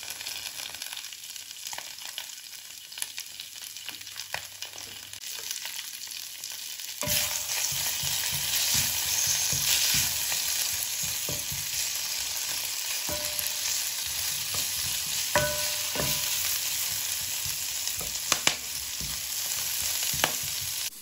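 Sliced mushrooms and kale sizzling in hot olive oil in a pan, being stirred with a wooden spatula. The sizzle gets louder about seven seconds in, and a few sharp knocks come in the second half.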